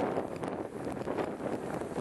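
Wind buffeting the microphone, a gusty rushing noise.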